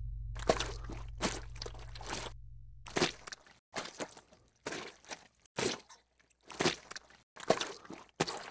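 Footstep sound effects: a person walking at an even pace, about ten steps spaced a little under a second apart. A low hum dies away over the first three seconds.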